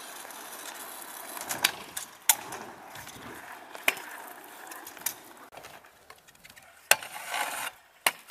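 Freestyle stunt scooter rolling on asphalt, with a rolling hiss from its wheels. Several sharp clacks of the deck and wheels striking the ground and ramp are heard, and near the end there is a short scrape of under a second between two clacks.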